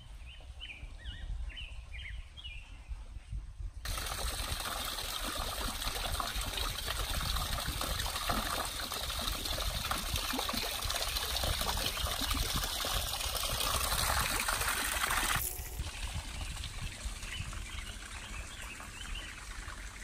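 Small birds chirp over a low rumble. About four seconds in, a small stream starts trickling and splashing over rocks, loud and steady, then cuts off suddenly about twelve seconds later. Fainter bird chirps follow near the end.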